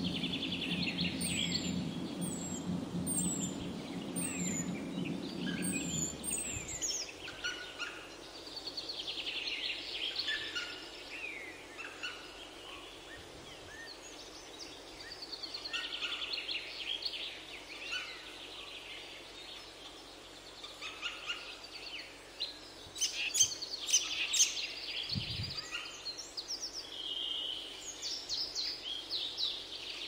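Many birds chirping and calling at once, short overlapping notes that come in waves. A low hum underneath stops about six seconds in, and a few sharp clicks stand out about two-thirds of the way through.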